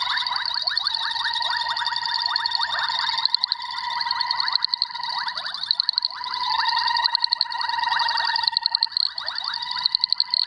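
Boettger's caco frog giving its advertisement call to attract females: rapid trains of clicking pulses repeated without pause, with louder peaks standing out now and then.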